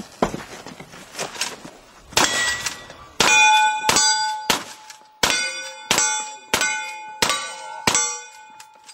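A rapid string of gunshots, each answered by the clang of a steel target plate ringing out. There are a few scattered cracks first, then from about three seconds in some eight shot-and-ring pairs follow each other about two-thirds of a second apart.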